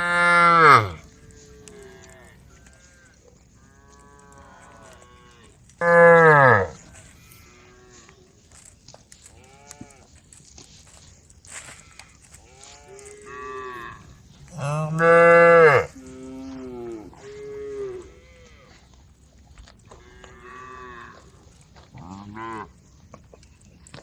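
Several cows mooing back and forth. Three loud moos come at the start, about six seconds in and about fifteen seconds in, the first two sliding down in pitch as they end, with fainter moos from other cattle in between.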